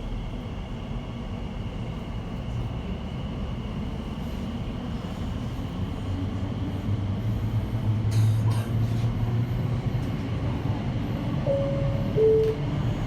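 Interior running noise of an Elizabeth line Class 345 train in tunnel, with a low motor hum that grows louder about halfway through as the train gathers speed. Near the end come two short tones, the second lower than the first.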